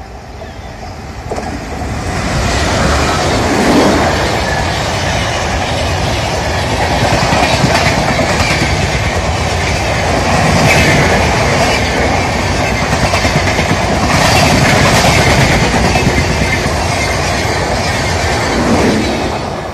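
Indian Railways express passenger train passing at speed close by: the rushing rumble of the locomotive and coaches with a running clickety-clack of wheels over rail joints. It builds about two seconds in and fades away near the end.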